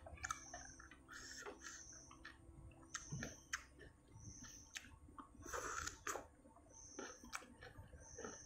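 Faint chewing and mouth noises of a person eating soup greens, with small clicks and a short noisy burst about five and a half seconds in.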